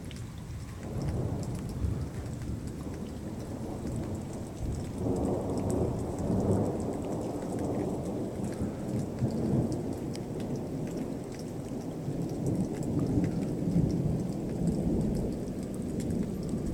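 Long rolling rumble of thunder that builds about a second in and swells stronger from about five seconds in, with rain falling.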